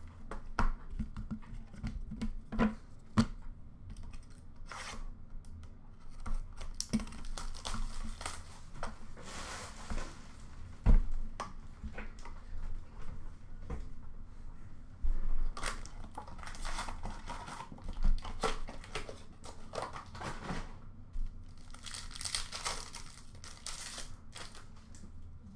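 A box of 2023-24 Upper Deck Artifacts hockey cards and its packs being torn open by hand: several stretches of tearing and crinkling wrapper, with clicks and knocks from the cards and cardboard being handled.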